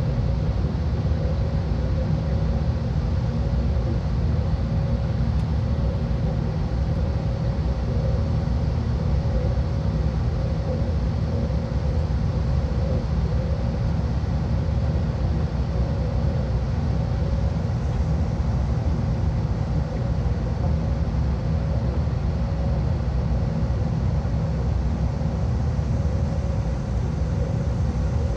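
Steady cabin noise of an Airbus A319-131 climbing after takeoff, heard from inside the cabin: a low, even rumble of its IAE V2500 turbofan engines and rushing air, with a faint steady tone above it.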